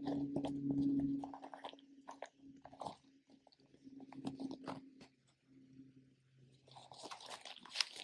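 Hands rummaging in a leather drawstring pouch, a run of small rustles and crinkles as fibrous tinder is drawn out, growing denser and crisper near the end. A low steady hum runs underneath.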